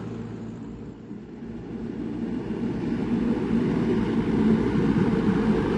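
Heavy diesel engine of construction equipment running, a low rumble that dips about a second in and then grows louder.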